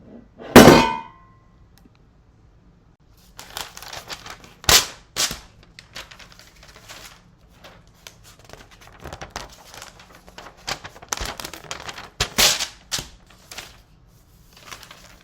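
Foley sound effects made with props: one loud clang with a short ring, then after a pause a long, irregular run of knocks, clatters and rustling with a few sharper hits.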